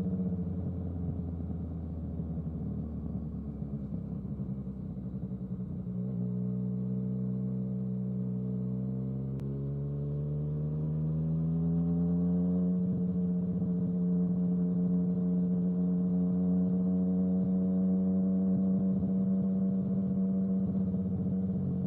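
Yamaha XSR900's inline three-cylinder engine running under way. The note holds steady, drops abruptly about six seconds in, then climbs smoothly for several seconds as the bike accelerates. It then settles into a steady, slightly louder cruise.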